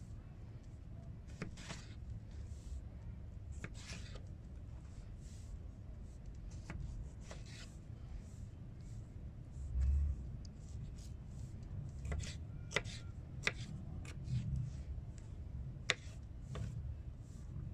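A sharpened spoon cutting a tomato on a cutting board: scattered light taps and clicks of the edge on the board, with a dull thump about ten seconds in.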